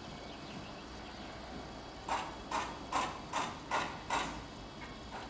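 Six quick footsteps on hard platform paving, about two and a half a second, over a faint steady background hum.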